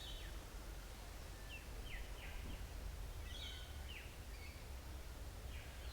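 Faint birds chirping: a handful of short, quick falling notes over a low, steady background rumble.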